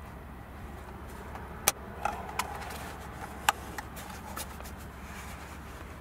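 A few sharp, short plastic clicks and taps, two of them louder, as a plastic trim piece is pressed onto the hard plastic back cover of a car's centre-console armrest, over a steady low hum.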